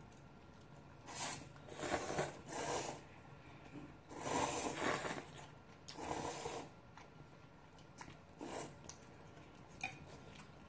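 Ramen noodles being slurped off chopsticks in about five separate slurps, the longest about four seconds in, with quiet eating between.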